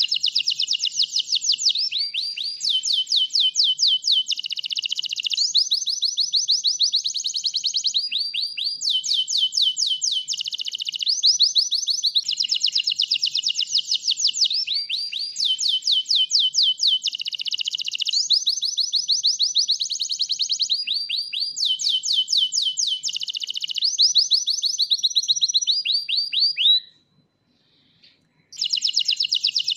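White domestic canary singing in full song: long runs of fast, high-pitched repeated trills, switching to a new trill every second or two. It breaks off briefly near the end, then starts again.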